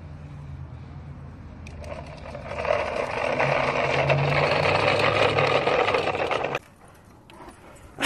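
Motorized toy dump truck's small electric motor whirring and its wheels rolling on asphalt, getting louder as it comes close, then stopping abruptly about six and a half seconds in.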